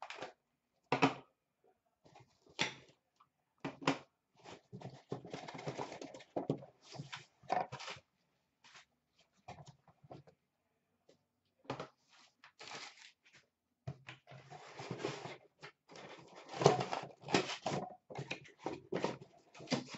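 Cardboard box being handled and opened, with its tape pulled free: scattered taps, knocks and scrapes, and two longer stretches of scraping and tearing, a third of the way in and again about two-thirds of the way in.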